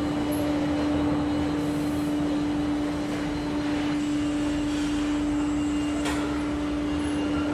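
A steady drone: one held low tone over an even rushing noise, unchanging throughout.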